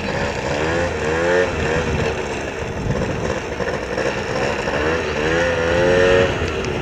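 Lure-coursing machine motor running, its pitch rising and falling as it reels in the lure line, loudest about six seconds in.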